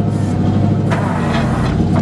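The 7.4-litre gasoline V8 of a 2000 Chevrolet 3500 HD tow truck running steadily, with a brief rush of noise about a second in.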